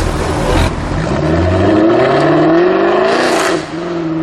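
Jaguar F-Type R's supercharged 5.0-litre V8 accelerating hard, its note rising steadily for about two seconds, then dropping sharply at a shift or lift and running on at a steadier pitch.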